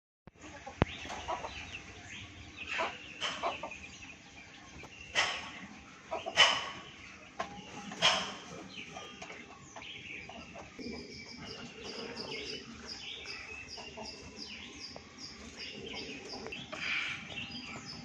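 Country chickens clucking and calling, with several loud separate calls in the first eight seconds. From about ten seconds in, short high peeps repeat about twice a second.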